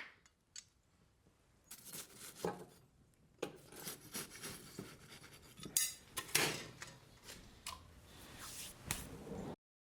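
Metal clinking and scraping several times at irregular moments, like steel tools and the blade being handled, with quiet between; the sound cuts off abruptly near the end.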